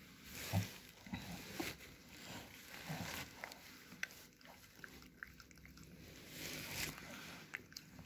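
Faint grunts and breaths from a shih tzu bitch straining in labour as she pushes out a puppy, with a few small scattered clicks.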